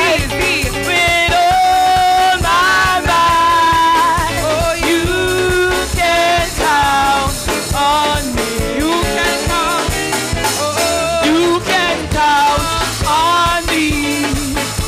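Church gospel chorus sung by several voices over a live band with drum kit.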